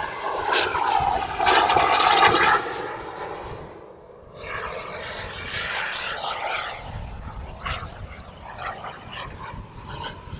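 Radio-controlled model jet's engine heard as it flies past overhead, loudest in the first couple of seconds, dropping away about four seconds in, then fainter and uneven as it flies on.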